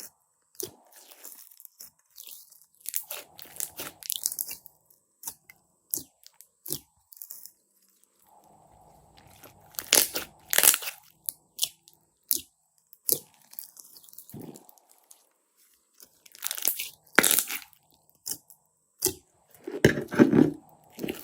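Slime being handled by hand, giving irregular sticky crackles and crunchy clicks, with louder bursts of crackling at about ten seconds, at about seventeen seconds, and near the end.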